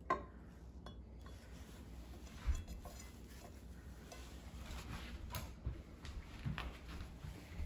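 A handful of light, separate clinks and knocks of graduated cylinders and a plastic-straw salinometer being handled on a glass tabletop, with a low handling rumble between them.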